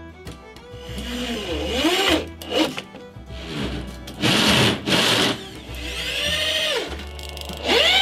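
Electric drill driving screws into a wooden frame in about four short runs, its motor pitch rising and falling with each one. Background music plays throughout.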